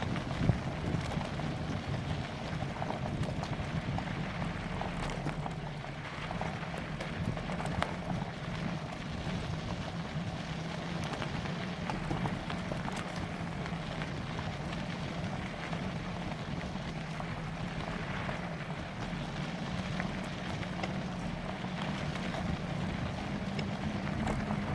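Bicycle riding noise on a trail: steady tyre rolling and small rattles, with a low hum that rises slightly near the end, and wind on the microphone.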